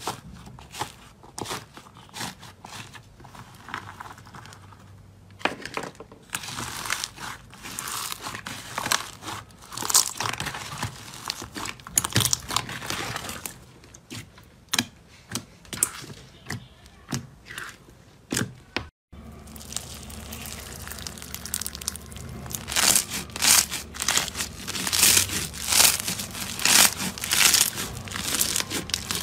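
Crunchy slime being handled close to the microphone: dense crackling and crinkling with many sharp little clicks. The sound cuts out briefly about two-thirds of the way through, and afterwards the crackling is louder and denser.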